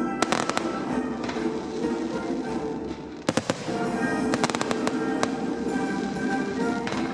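Fireworks bursting with sharp bangs and crackles over music: a few bangs near the start, then a quick cluster of bangs from about three seconds in to past the middle, and one more near the end.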